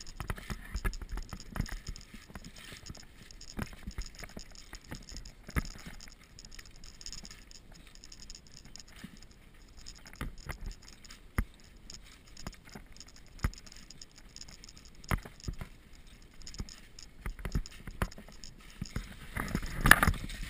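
Footsteps crunching and rustling through dry fallen leaves, an irregular run of crackles and scuffs, louder for a moment near the end.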